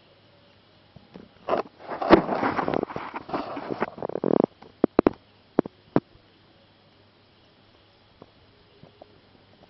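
Handling noise of a phone camera being moved: about three seconds of loud rubbing and crackling against the microphone, then a few sharp clicks, after which it goes quiet again.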